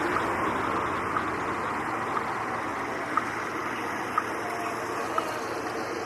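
City street ambience: a steady wash of traffic noise, with a short, faint tick about once a second.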